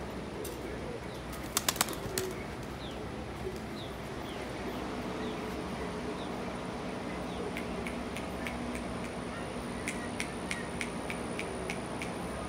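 A pigeon taking off, its wings clapping sharply three or four times about two seconds in. Later comes a run of lighter, evenly spaced clicks, with faint bird chirps over a steady outdoor background.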